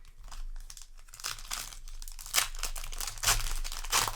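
Crinkling and tearing of a booster pack's foil wrapper being handled and ripped open, in a run of short crackles with several sharper ones in the second half.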